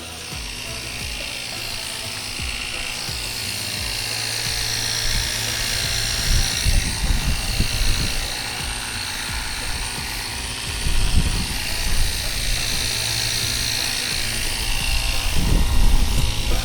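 Ryobi cordless pressure washer spraying water, a steady hiss that slowly swells and fades, with background music playing under it.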